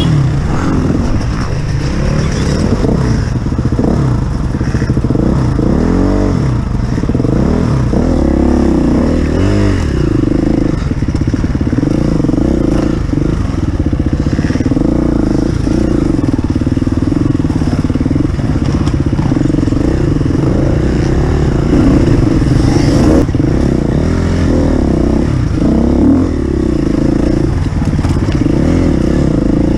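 Off-road motorcycle engine running hard, its pitch rising and falling repeatedly as the throttle is opened and closed.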